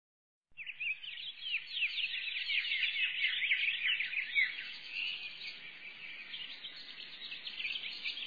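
A dense chorus of small birds chirping, many short high chirps overlapping, starting about half a second in after a moment of silence.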